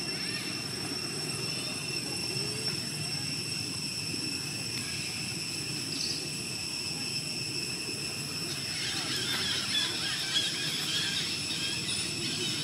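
Outdoor forest ambience: a steady high-pitched whine over a low rumble, with birds chirping from about nine seconds in.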